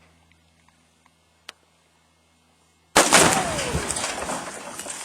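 Two pounds of Tannerite detonating inside a washing machine about three seconds in: one sudden, very loud blast followed by a long rumbling echo that fades slowly, with a brief whistle dropping in pitch just after the bang.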